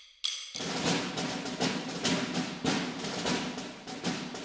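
Instrumental background music: one ringing mallet-like note, then from about half a second in a busy drum-and-percussion beat with regular strikes.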